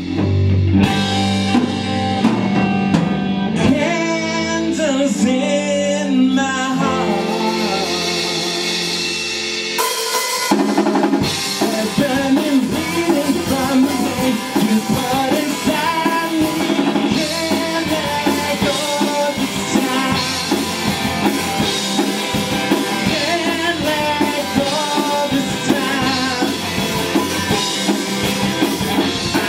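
Live rock band playing an instrumental break. Held notes and bending guitar lines come first, then the full band with drum kit comes in hard about ten seconds in.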